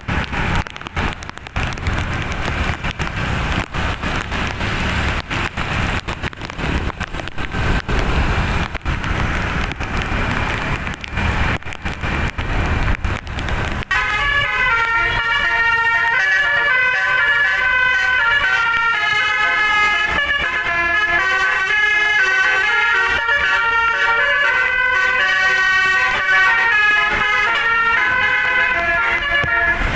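A noisy rush for roughly the first half, then a bus's telolet basuri musical air horn cuts in suddenly about halfway and plays a melody of stepping horn notes through to the end.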